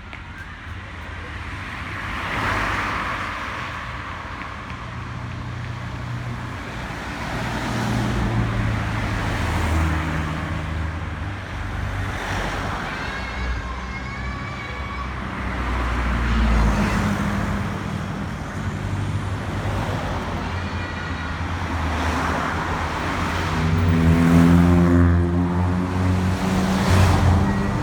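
Road traffic: vehicles driving past in swells every few seconds over a steady low engine hum, with a heavy vehicle's engine rising in pitch near the end.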